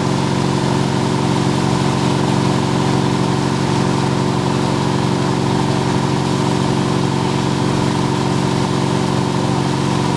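Wake boat's inboard engine running steadily at wakesurfing speed, a constant even drone over the rushing wash of the wake and spray.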